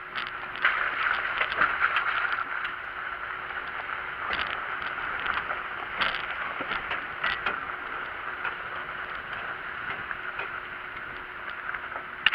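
A 4x4 driving slowly along a rough dirt trail, heard from a camera mounted on the outside of the vehicle: a steady rush of road and wind noise, louder in the first couple of seconds, with occasional knocks as it goes over bumps.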